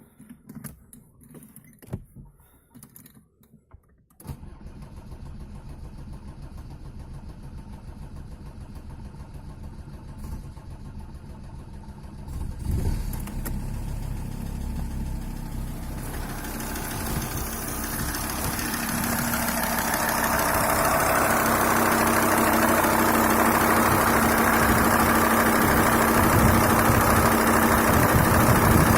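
Audi A6 C4 2.5 TDI five-cylinder diesel starting about halfway in and then idling, growing louder until it runs steady near the end. The owner is chasing a knock in this engine that persists after overhauled injectors and hydraulic lifters, a vacuum pump found in order and adjusted injection timing.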